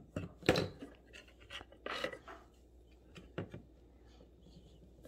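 A utensil stirring and scraping a wood-glue slime mixture in a container, with a few short, irregular scrapes.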